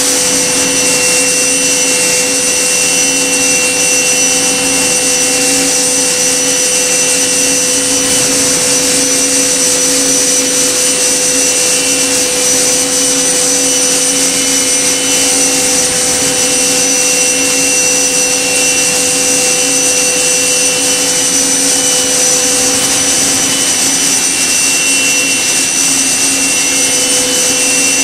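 Spindle of an Okuma MB-5000HII horizontal machining centre running at a steady high speed: a constant high whine with several steady tones over an even hiss.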